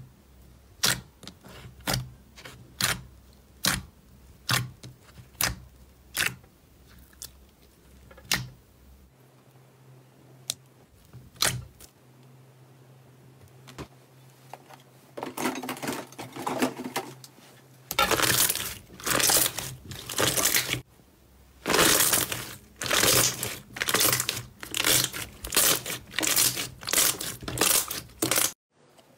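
Fingers poking slime in a plastic tub, making sharp popping clicks about once or twice a second as air pockets burst. Later, slime being squeezed and kneaded by hand gives dense crackling, squelching bursts, about two a second and louder.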